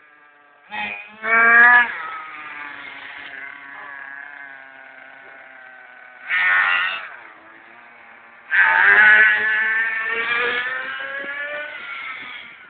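Small two-stroke glow-fuel (nitro) engine of an A-Max Thwarter 1/10-scale RC monster truck running, with short blips of throttle about a second in and around six seconds, then a longer, louder run from about eight and a half seconds that slowly dies back. Between the bursts it settles to a lower, steady note.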